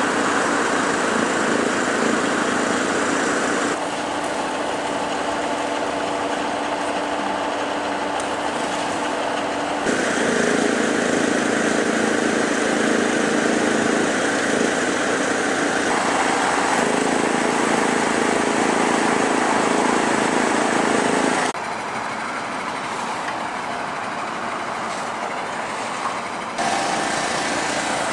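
Diesel engine of a Ural truck-mounted crane running steadily as the crane lifts a load. The tone and level shift abruptly several times.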